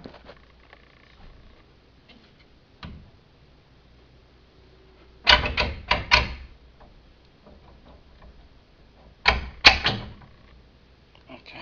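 Sharp clattering knocks of an elliptical trainer's arm and parts being handled and fitted: a quick run of four knocks about five seconds in, and another run of three about four seconds later, with a few single clicks between.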